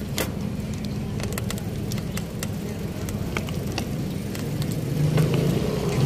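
Street traffic: vehicle engines running steadily, with one engine growing louder near the end as a motorcycle tricycle draws close. Scattered light clicks are heard along with it.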